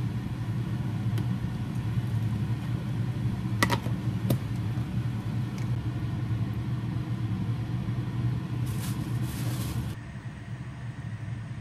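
Steady low mechanical hum, with two light clicks of kitchen utensils about four seconds in and a short hiss around nine seconds; the hum drops away about ten seconds in.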